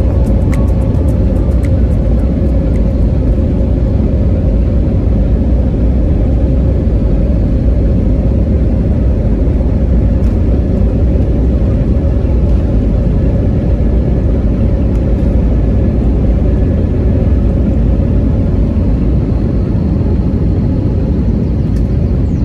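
Airbus A320neo cabin noise in flight: a steady, loud jet engine rumble and airflow with a constant hum.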